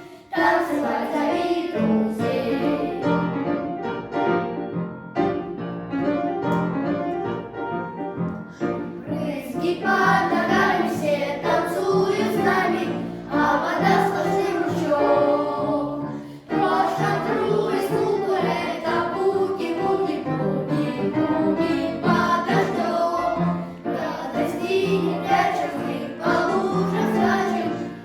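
Boys' vocal ensemble singing a boogie-woogie song, with a short break between phrases about two-thirds of the way through.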